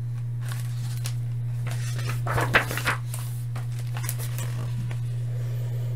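A page of a hardcover picture book being turned: a brief papery rustle about halfway through, over a steady low hum.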